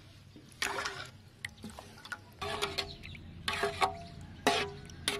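Metal spoon stirring wet pieces of pork liver in a metal pan, about five wet scraping strokes, the pan ringing briefly after each.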